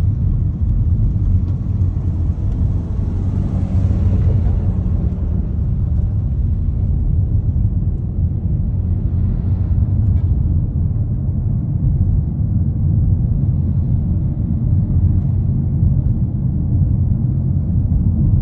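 Steady low rumble of road and engine noise inside a moving car's cabin. A louder swell of hiss comes about three to five seconds in as the car passes a line of dump trucks.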